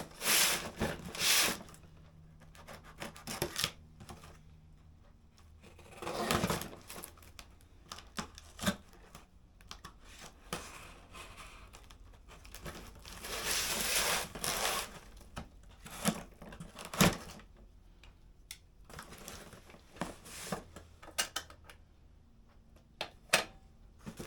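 A cardboard shipping box being opened by hand: packing tape or cardboard tearing in several noisy rips, the longest about halfway through, with packaging rustling, scraping and knocking in between.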